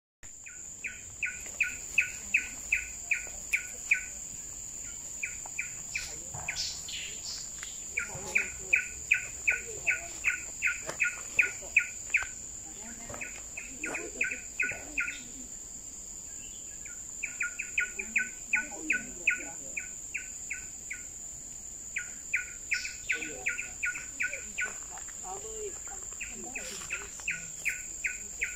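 Coppersmith barbet calling: a long series of evenly repeated short "tuk" notes, about three a second, in runs of a few seconds broken by short pauses. A steady, high-pitched insect drone runs underneath.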